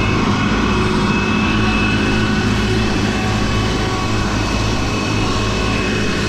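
International 986 tractor running a Gehl 2412 mower-conditioner cutting hay: a steady engine drone with a higher whine over it.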